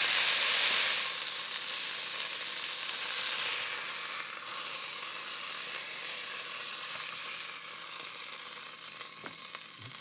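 Bacon fat sizzling in a hot Dutch oven as browned grouse pieces are lifted out with a wooden spatula. The sizzle is loudest in the first second, then drops and slowly fades.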